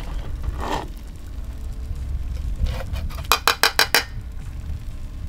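Metal serving spoon tapping five times in quick succession against the edge of a plate, knocking off a serving of cottage pie, over a steady low rumble.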